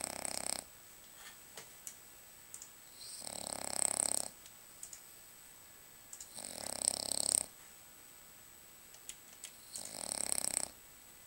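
French bulldog snoring: four rasping snores about three seconds apart, each swelling louder before it breaks off, with faint snuffles and clicks between them.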